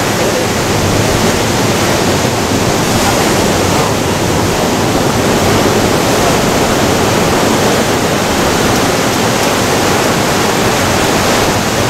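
Surf breaking and washing over a rocky shore: a loud, steady rush of sea noise.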